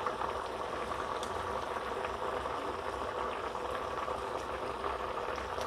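Shallow water with a little cooking oil bubbling at a steady boil in a nonstick frying pan around chive dumplings, with small scattered pops. This is the first, boiling stage of pan-frying potstickers.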